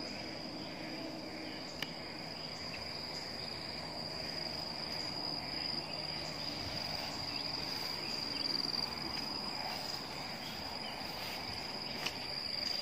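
Steady, high-pitched drone of forest insects, one unbroken note that holds throughout, over a soft background hiss. Two faint clicks, about two seconds in and near the end.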